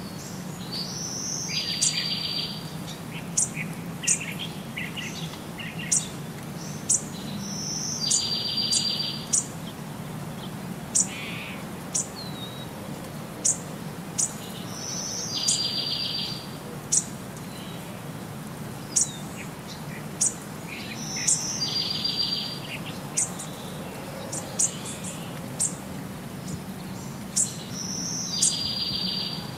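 Bird calls: a short high note followed by a fast buzzy trill of about a second, repeating about every six to seven seconds, with scattered brief high chirps over a steady low hum.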